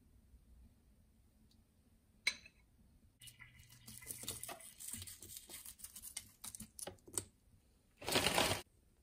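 Fried papri crisps being crumbled by hand and scattered onto a yogurt-covered dish: a dense crackling rustle of breaking crisps for a few seconds, then a short loud rush of noise near the end.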